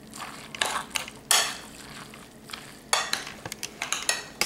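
A metal spoon stirring and tossing spaghetti squash strands, black beans and salsa-coated vegetables in a glass bowl. Wet mixing sounds are broken by several irregular sharp clinks and scrapes of the spoon against the glass.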